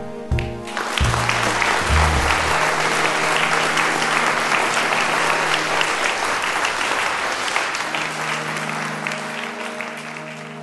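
Audience applauding, beginning about a second in and slowly dying away near the end, with soft background music underneath.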